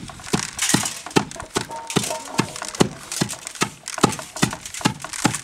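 Wooden pestle pounding sorghum grain in a carved wooden mortar: a steady beat of strikes, about two and a half a second.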